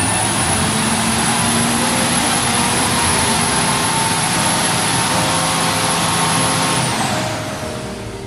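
A Mahindra Xylo's diesel engine held at high revs: a loud steady rush with a high whistle over it, falling away about seven seconds in. The heavy black smoke it is blowing out shows a carbon-fouled engine due for decarbonising.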